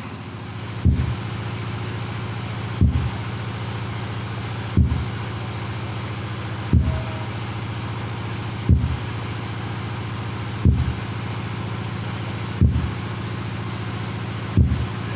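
Bass-heavy test playback through a large 'horeg' sound system: a steady low hum with a heavy bass thump about every two seconds.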